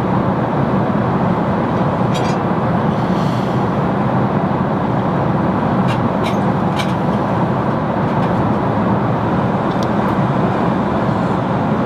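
Steady roar of an airliner cabin in flight, the engine and airflow noise heard from a seat inside the cabin, with a few faint light clicks now and then.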